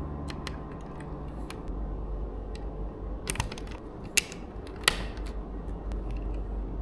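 LEGO plastic parts being handled, with a few scattered sharp clicks and small rattles.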